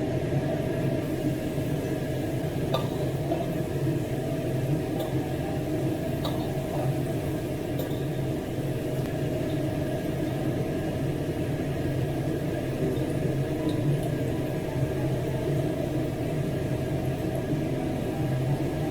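Shrimp wontons deep-frying in hot vegetable oil: a steady bubbling and sizzling over a constant low hum, with a few faint clinks.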